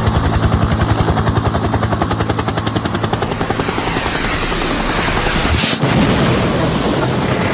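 A loud, rapid, steady pulsing mechanical noise that cuts in suddenly and sounds muffled.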